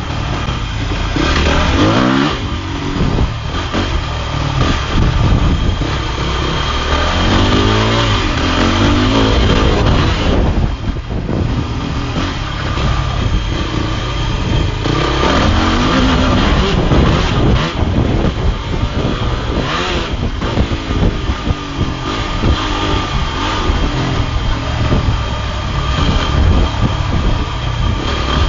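Dirt bike engine revving up and down again and again while riding, the pitch climbing and dropping every few seconds, under a heavy steady rush of noise.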